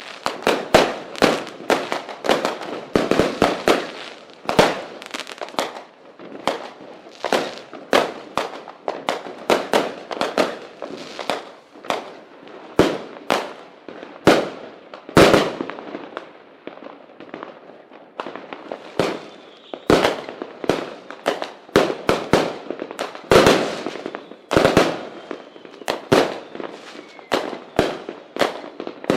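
Fireworks and firecrackers going off in a dense, irregular barrage: sharp bangs and pops, several a second, with no pause.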